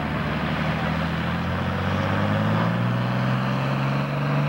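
Diesel farm tractor engine under full load, dragging a weight sled in a tractor pull. It is a steady, heavy drone whose pitch climbs slightly over the first few seconds and then holds.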